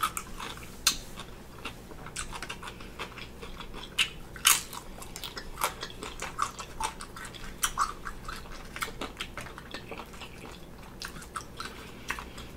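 A person chewing food with irregular crisp crunches and clicks; the sharpest crunch comes about four and a half seconds in.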